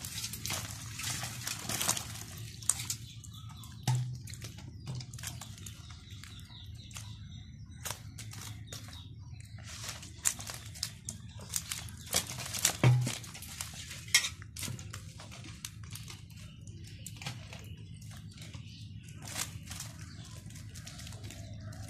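Freshly caught small fish being handled in a plastic colander: scattered wet slaps, taps and rustles, with a couple of louder knocks.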